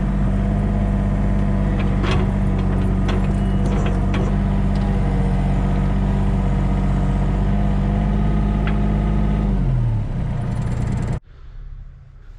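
Home-built 6 ft wide bandsaw mill running steadily with a constant hum and scattered small ticks. Near the end it winds down, its pitch falling, and the sound then cuts off abruptly.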